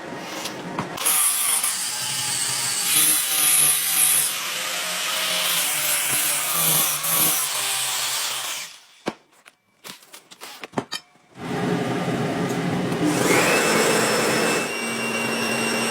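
Workshop tool noise of shaping or finishing the knife: continuous sawing or sanding noise. It stops about nine seconds in for a few seconds of faint clicks, then starts again with a steady whine.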